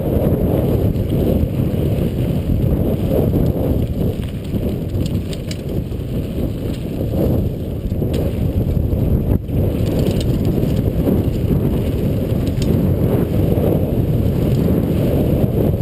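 Downhill mountain bike running fast down a dry dirt trail: a steady rush of wind on the rider's camera microphone, with faint ticks and rattles from the bike and gravel.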